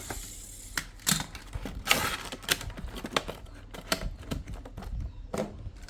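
Irregular sharp clicks and brief rustling of plastic toy parts and packaging being handled.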